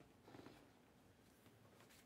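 Near silence, with a faint rustle of glossy trading cards being slid through by hand, clearest about half a second in.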